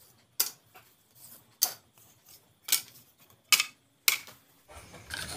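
Five short, sharp clicks, roughly a second apart, with a rustling haze starting near the end.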